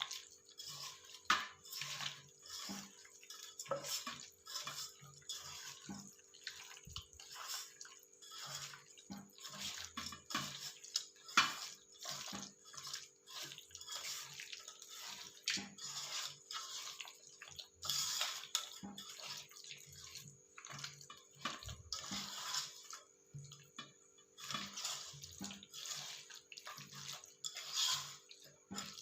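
Chicken being mixed into a thick yogurt-and-spice marinade in a bowl: a run of irregular wet squelching and slapping strokes, over a faint steady hum.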